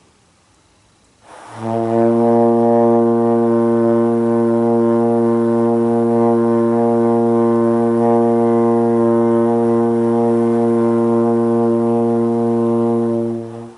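Trombone playing one long, steady low note (about B-flat), held for around twelve seconds as a sustained long tone. It starts after a short breath about a second in and cuts off just before the end.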